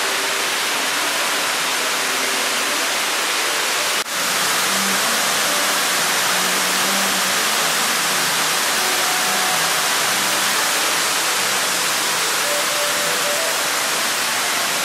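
Water sheeting down the tall wall of the Dubai Mall's indoor waterfall into its pool below, a loud, steady rush that breaks off for a moment about four seconds in.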